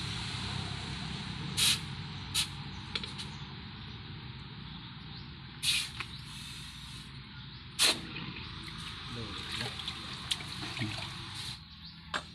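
Charcoal forge with its air blower running, a steady rush of air over a low hum, while a bolo blade is heated in the coals. A few sharp metal knocks and clinks sound over it, the loudest about two-thirds of the way in.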